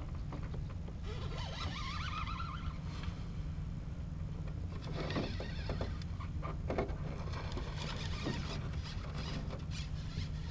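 Rod-and-reel handling in an aluminium jon boat while casting and retrieving: scattered clicks, scrapes and rustles, busiest about five seconds in, over a steady low hum.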